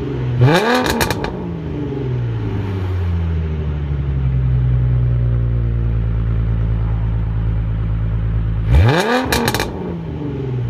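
Exhaust of a 2009 Mustang's 4.0-litre V6 through Pypes shorty headers and a true dual exhaust, blipped once about half a second in, then settling to a steady low idle before a second quick rev near the end.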